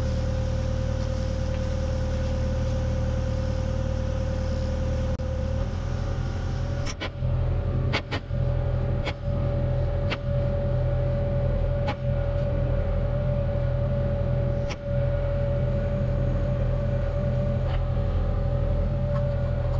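Excavator's diesel engine running steadily with a constant high whine, picked up by a camera mounted on the machine, so the sound is rattly. About five seconds in the engine note changes, and after that sharp rattles and clunks come every second or two as the bucket moves.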